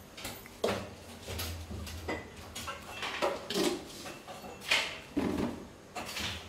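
Kitchen utensils clinking and scraping: a spoon knocking and scraping against containers and a metal cooking pot in a series of short, irregular strikes.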